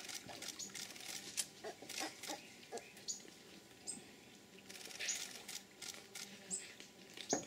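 Giant otters chewing and crunching armoured acari catfish: irregular wet cracks and clicks as teeth break through the fish's bony plates. Short high chirps sound now and then.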